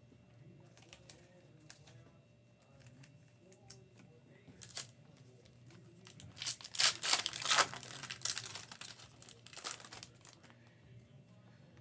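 Foil trading-card pack wrapper being torn open and crinkled by hand, with a few light handling clicks first and the loudest crinkling bursts about two-thirds of the way through.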